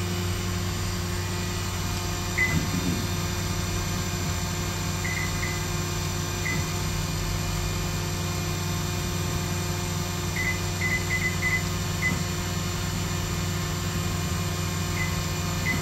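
DMG Mori NTX 1000 CNC turn-mill machine running with its spindles turning at several thousand RPM: a steady mechanical hum with many steady tones. Brief high chirps come a few times.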